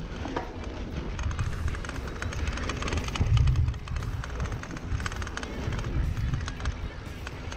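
Mountain bike riding down a dirt singletrack: a steady low rumble of wind on the microphone under tyre noise and a constant light rattling of the bike. A heavier thump comes about three and a half seconds in.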